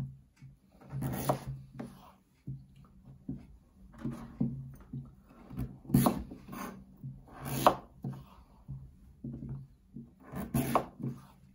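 Kitchen knife cutting through raw butternut squash on a chopping board: the blade scrapes through the firm flesh and knocks on the board, several separate cuts at irregular intervals.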